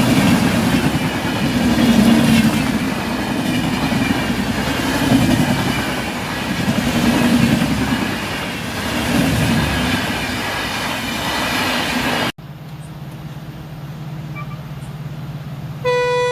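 Train running past: a heavy rumble with rhythmic clatter of the wheels, swelling and easing every couple of seconds. About three-quarters through, the rumble cuts off abruptly to a quieter steady hum. Near the end a loud, steady, single-pitched horn tone starts.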